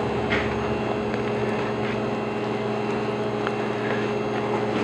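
Steady mechanical hum, like a kitchen's ventilation or appliance running, with a few faint soft ticks.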